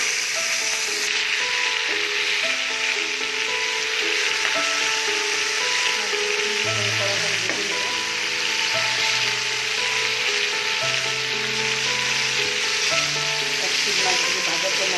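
Turmeric-rubbed rohu fish pieces frying in hot oil in a kadai, sizzling steadily and strongly just after going into the pan. Soft background music with held notes plays under the sizzle.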